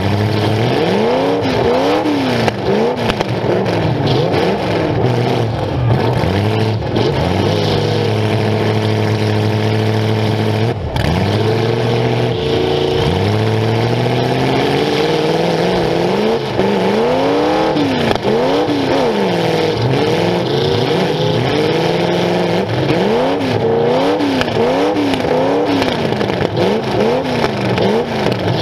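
Demolition derby car's engine, heard close up from onboard, revving up and down over and over about once a second, settling into a steady hold for a few seconds around the middle before revving again, with an occasional knock from the car.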